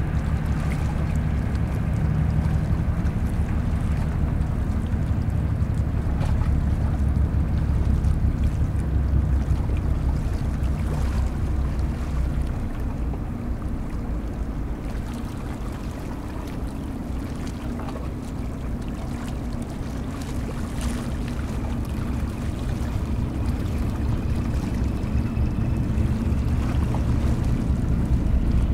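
Tugboat's diesel engine running with a deep, steady rumble. It is loudest in the first half, dips about halfway through, then builds again near the end as the tug works alongside.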